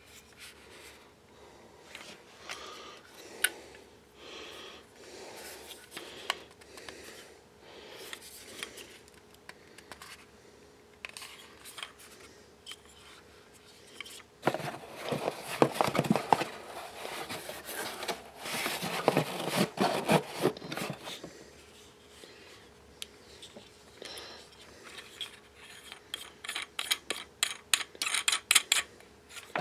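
Hands handling a Takstar SGC-598 shotgun microphone in its plastic shock mount, with scattered clicks and rubbing on the plastic body and foam windscreen. A louder stretch of rubbing comes about halfway through, and a run of quick clicks near the end.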